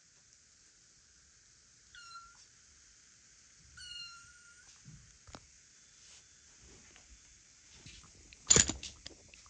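Kitten mewing twice, two short high-pitched calls about two seconds apart, followed near the end by a brief, louder noise.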